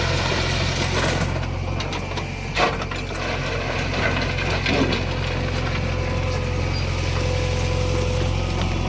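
Heavy diesel machinery engine running steadily, with scattered metallic clicks and one sharper knock about two and a half seconds in.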